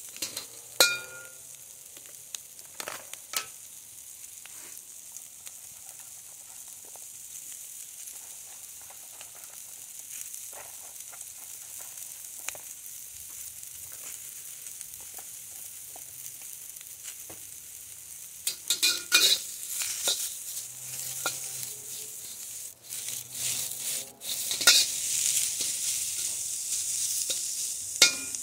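Vegetables sizzling in a hot steel wok, with a steady high hiss, and a metal wok spatula scraping and clanking against the wok as they are stirred: a few strokes early, a cluster about two-thirds through, and more near the end.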